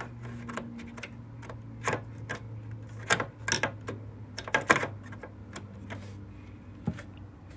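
Irregular plastic clicks and taps as a DDR4 desktop memory stick is handled and tried against a motherboard's memory slot and its latches, over a steady low hum.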